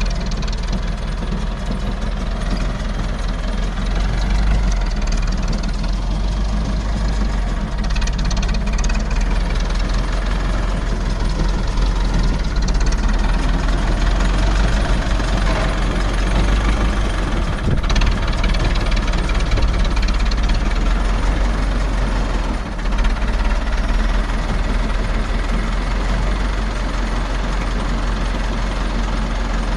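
Tractor engine running steadily while it tows and powers a pick-up baler, with the baler's machinery running underneath. There is a single sharp knock about eighteen seconds in.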